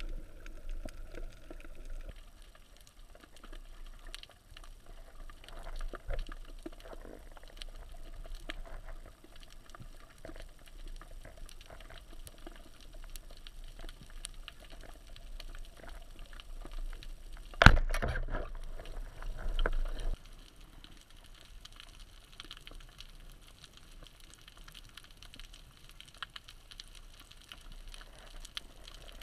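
Underwater ambience picked up by an action camera in its waterproof housing: a steady low rumble and hiss with many faint crackling clicks. About 18 seconds in comes a single sharp knock, followed by about two seconds of louder rushing noise.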